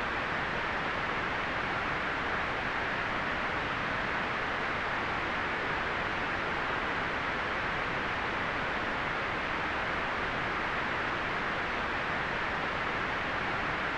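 Steady white-noise hiss, perfectly even and unchanging, with most of its energy in the upper middle and the highest frequencies muted.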